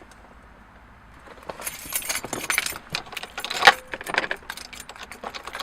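Quick clicking and jingling rattles of small hard objects being handled, starting about a second and a half in and loudest near the middle.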